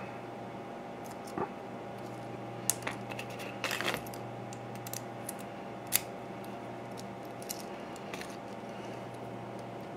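Small metal clicks and taps of an American Series 5200 padlock's parts being handled as the lock is taken apart, with a short cluster about four seconds in and the sharpest click about six seconds in, over a steady low hum.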